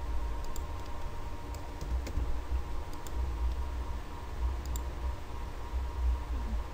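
A handful of faint clicks from a computer keyboard and mouse, some in quick pairs: a captcha number is typed in and the on-screen buttons are clicked. Under them runs a steady low rumble and hum.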